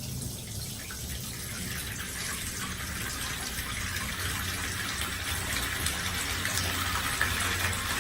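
Bath water running from the tap into a bathtub being filled: a steady gush that grows gradually louder.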